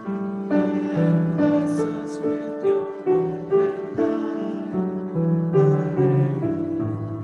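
Congregation singing a hymn with grand piano accompaniment, a steady flowing melody of held notes.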